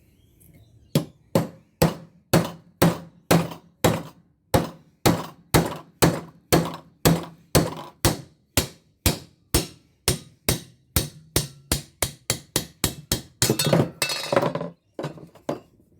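Hammer repeatedly striking a cold chisel against a steel light ballast to knock its plate off: steady metal-on-metal blows about two to three a second, quickening near the end with a quick flurry of strikes.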